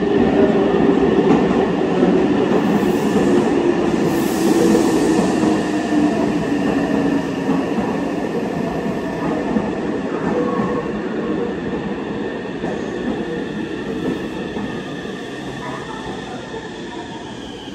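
Meitetsu limited-express electric train pulling into an underground platform and braking: a loud rumble of wheels on rail, with the motor whine falling in pitch as the train slows. The sound fades gradually.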